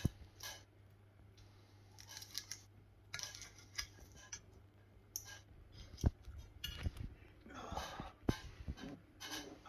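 Cutlery scraping and tapping on a plate in scattered, quiet strokes as a savoury pancake with salad is cut and eaten, with a few sharper knocks in the second half.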